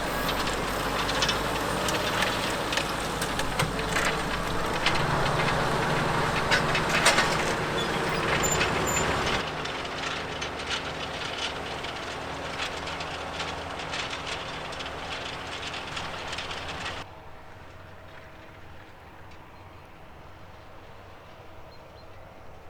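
Fendt 936 tractor engine running under load as it pulls an eight-furrow plough, with rattling and clanking from the implement. The sound drops suddenly twice, about 9 and 17 seconds in, becoming quieter and more distant.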